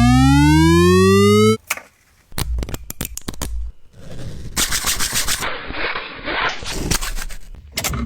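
A rising pitched tone that stops about a second and a half in, followed by rapid clicking and rattling.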